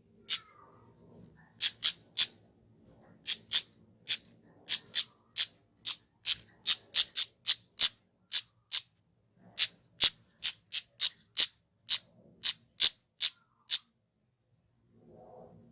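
Kemade flowerpecker giving a long series of short, sharp, high-pitched calls, singly and in quick runs of two to four, stopping a little before the end.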